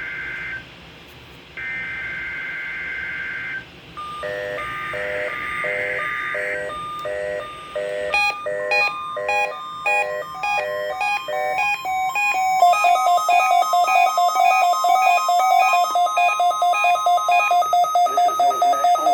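NOAA Weather Radio test signal. The SAME digital header ends with two warbling data bursts, then electronic alert beeping starts and grows denser. A steady warning alarm tone joins in partway through, and from about two-thirds of the way a fast, even beeping runs on, which is weather alert receivers being set off by the signal.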